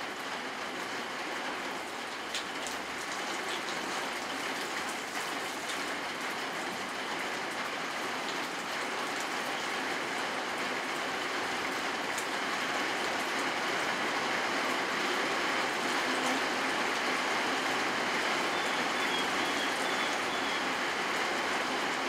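Steady rain falling: a continuous hiss with a few sharper drop ticks, getting a little heavier past the middle.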